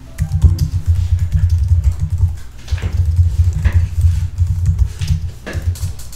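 Typing on a computer keyboard: a fast, uneven run of keystrokes with heavy low thuds and a few sharper clicks.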